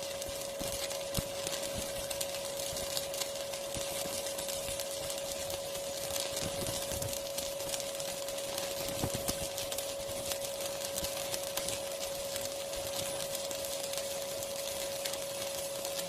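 Battery-powered stick welder arc burning steadily, crackling continuously over a constant high whine.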